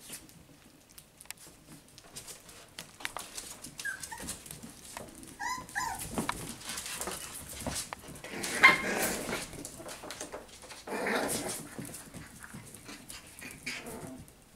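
Puppies playing together, giving short high yips and whimpers, with a few small calls about four and six seconds in and louder yapping around eight to nine seconds in.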